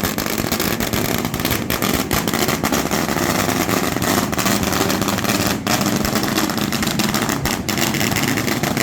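Fireworks going off: a steady loud roar with dense crackling and many sharp cracks throughout.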